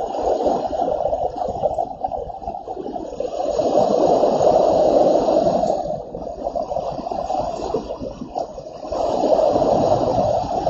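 Storm noise: a steady rushing that swells twice, about three seconds in and again near the end.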